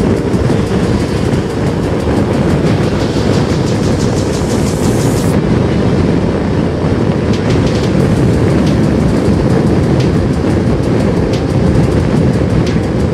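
Steady wind rush and road rumble on a microphone riding a moving motorcycle at highway speed, with the bike's engine beneath. A high hiss over it cuts off about five seconds in.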